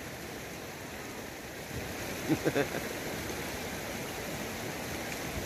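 Steady rushing of running water, with a brief faint voice about two and a half seconds in.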